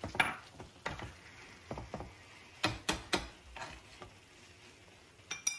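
A steel spoon and a spatula scraping and knocking in a non-stick frying pan as crumbled paneer is stirred into thick gravy. There are a handful of sharp clicks, one loud one near the start and three close together about three seconds in.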